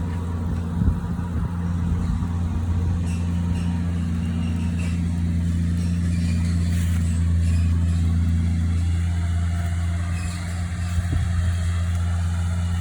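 Engine of a tree-trimming machine running steadily with a deep, even hum, with a few short sharp knocks over it.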